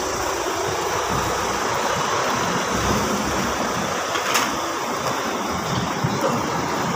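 Steamboat hotpot boiling on its burner, a steady rushing hiss, with a ladle clinking once against the steel pot about four seconds in.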